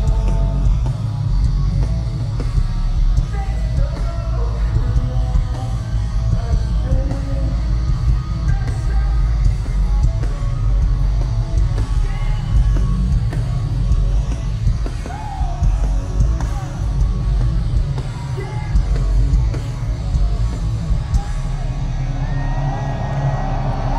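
Alternative-metal band playing live: loud distorted guitars, bass and drums with yelled and sung vocals. Near the end a sustained, wavering tone comes in over the band.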